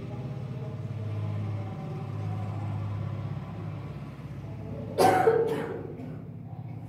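A woman coughs twice in quick succession about five seconds in, over a steady low hum.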